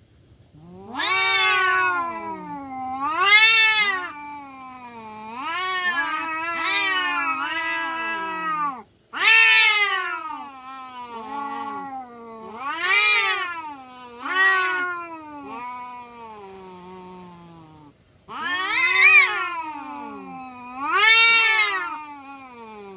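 Domestic cats yowling at each other in a standoff: a run of long, wavering howls that rise and fall in pitch, one after another with only brief breaks. These are the threat calls of cats squaring up to fight.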